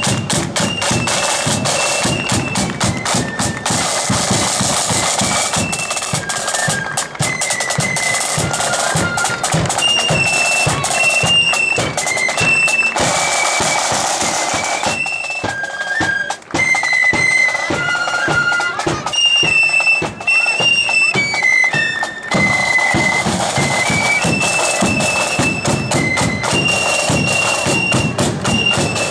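Marching flute band playing a tune: a high flute melody in short held notes over snare and bass drums beating steady time, with brief breaks between phrases about halfway through.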